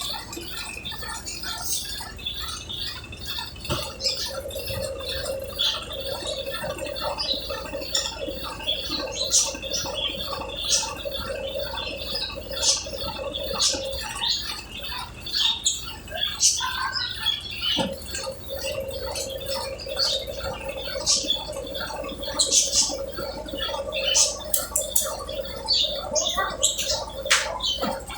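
Brastemp Ative 11 kg (BWL11) washing machine on its spin program: a steady hum that drops out for a few seconds about halfway, under many short high squeaks and ticks.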